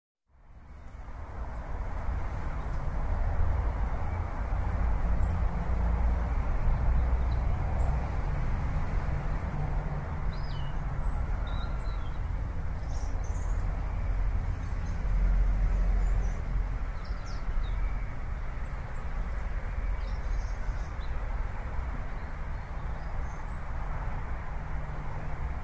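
Steady outdoor ambience fading in at the start: a low rumble with a hiss above it, and faint, short, high bird chirps scattered throughout.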